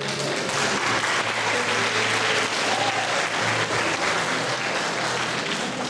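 An audience applauding: many hands clapping steadily, easing off near the end.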